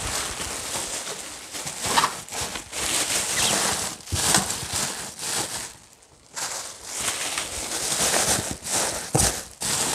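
Plastic bubble wrap rustling and crinkling in bursts as it is handled and stuffed into a cardboard box, with a few sharp crackles and a brief lull partway through.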